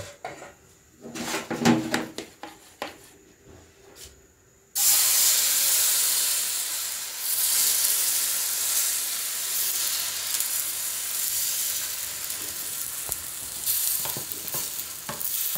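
A few light knocks and handling sounds, then about five seconds in a sudden loud sizzle as thin flour batter hits a hot karahi, hissing steadily as more batter is poured in.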